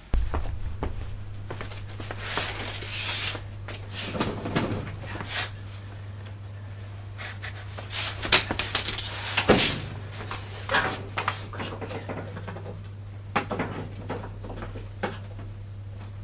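Handling noises of a person moving about among shop goods: scattered knocks, clatters and rustling, with a steady low hum underneath.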